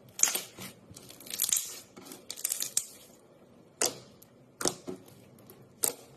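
Slime being squished and pulled, giving crackling, crunchy squelches: a few longer crackles in the first three seconds, then three short sharp pops.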